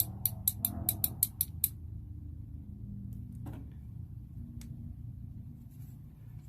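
Small plastic parts of a water pump's switch assembly being handled: a quick run of sharp clicks, about six a second, for the first second and a half, then a couple of single clicks over a steady low hum.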